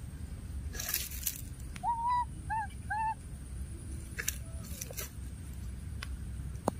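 Baby monkey giving three short, clear coo calls about two seconds in, the first the longest and the next two brief and arched. A few faint crackles come before and after.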